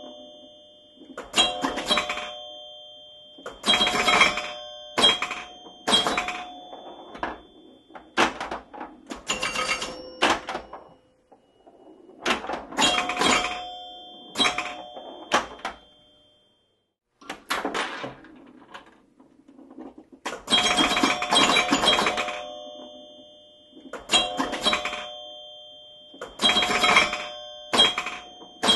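Pinball machine in play: bursts of rapid mechanical clacking from the playfield, with bells or chimes ringing out every second or two. There is a short pause about two-thirds of the way through.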